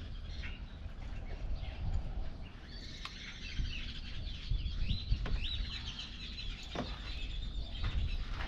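Small birds chirping repeatedly in short, quick calls, over a low, steady rumble.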